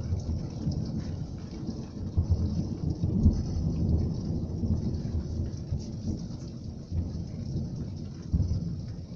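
Heavy rain falling on a street, with a steady hiss under a low rolling rumble that swells a couple of seconds in and again near the end.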